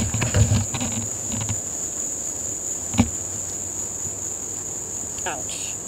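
Insects chirping in a steady, high-pitched chorus. Rustling footsteps are heard in the first second or so, and there is a single sharp click about three seconds in.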